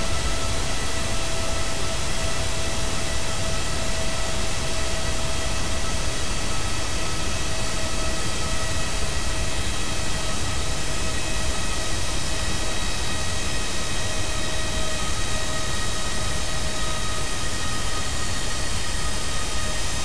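GE GEnx turbofan jet engine running down in a deceleration: a steady rush of noise with several steady whining tones over it.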